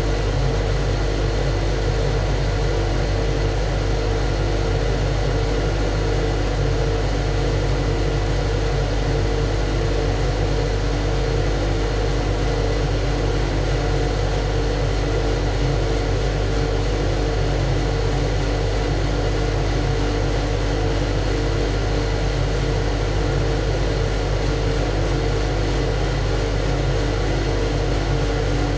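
Ship's engine room machinery running steadily: a loud, unchanging low drone with a constant hum and a thin high whine over it.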